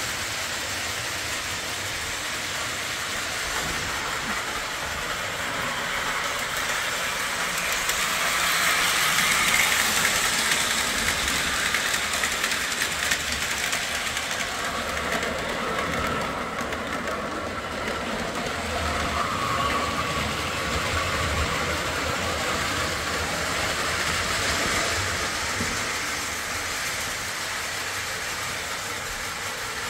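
Lionel O-27 model steam locomotive pulling a train around a three-rail layout, running steadily and getting louder as it passes close about eight to ten seconds in and again around twenty seconds in.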